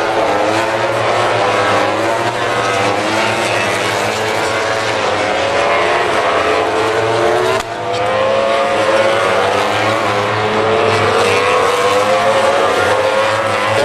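MotoGP racing motorcycles' 1000 cc four-cylinder four-stroke engines running at high revs, their notes rising and falling as the bikes brake, shift and accelerate through a corner. There is a brief break in the sound about halfway through.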